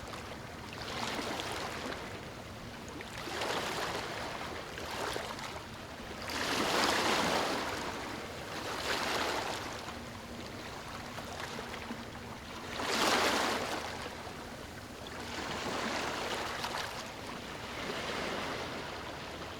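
Small, calm waves washing up on a sandy beach: a soft rush of surf that swells and fades roughly every two seconds, with two bigger washes about a third and two thirds of the way through.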